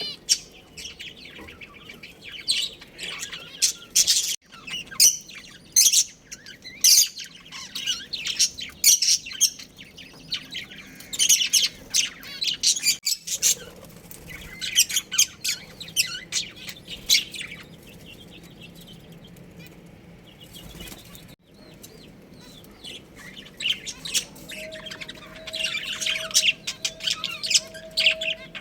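Budgerigars chirping in quick clusters of short, high calls, with a lull of a few seconds past the middle. A steady, slightly pulsing mid-pitched tone sounds under the chirps near the end.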